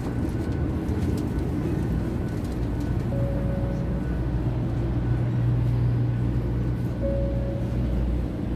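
Steady low hum and rumble inside a Series 500 Shinkansen passenger car, with two brief single-pitched beeps, one about three seconds in and another about seven seconds in.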